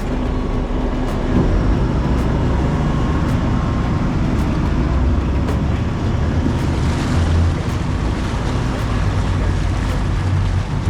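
A large engine running steadily: a continuous low rumble with rushing noise over it.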